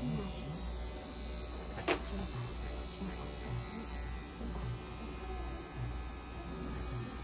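Small cordless pet clipper buzzing steadily as it trims the fur between a cat's paw pads. One sharp click about two seconds in.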